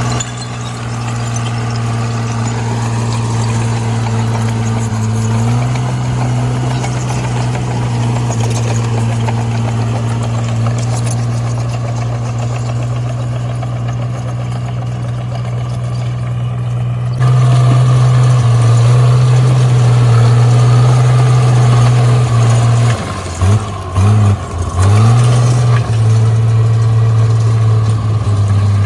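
Komatsu D37P bulldozer's diesel engine running steadily under load. Its pitch steps up about five seconds in, and it gets louder about two-thirds of the way through. Near the end the engine speed dips briefly a few times.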